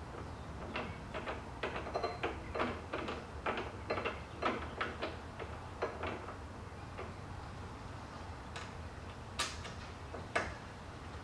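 Allen key clicking and ticking against metal as the inside Allen screws of a tie-down bracket on the Bedslide's aluminum rail are turned down: a quick run of small clicks for the first six seconds or so, then a few sharper single clicks near the end.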